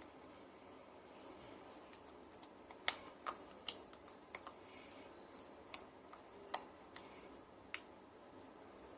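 Sticky homemade slime being squeezed and pressed by hand, giving about a dozen sharp, irregular clicks and pops that start about three seconds in.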